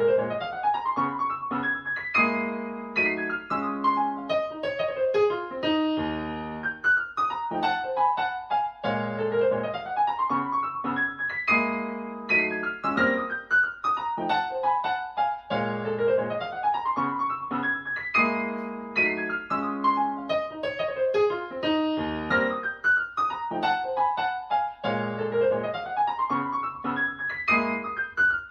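Solo piano music with rising and falling runs in a phrase that repeats every six or seven seconds, played back through Wharfedale Diamond 9.0 bookshelf speakers driven by a NobSound NS-15G amplifier.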